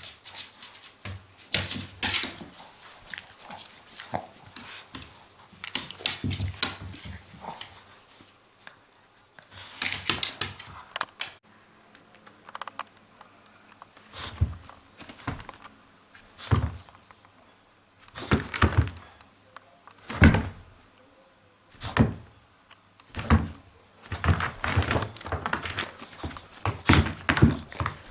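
A Shih Tzu's paws and body bumping on a hard floor and steps as it moves about: irregular thuds and knocks, a few seconds apart at first, then coming quickly one after another near the end.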